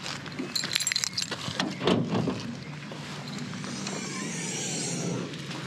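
Car keys jangling and clicking in the hand, then the car's tailgate being lifted open, a drawn-out sound that slides up and down in pitch.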